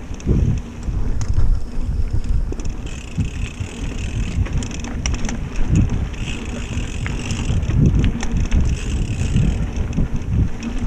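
Mountain bike rolling along a smooth dirt trail: a low, uneven rumble of wind buffeting the action-camera microphone and tyre noise, with scattered clicks and rattles from the bike.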